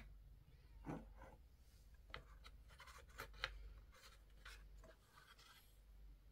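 Faint handling sounds: a handful of light clicks and scrapes as a smartwatch and its strap are pulled out of a cardboard box insert, with a soft rustle near the end.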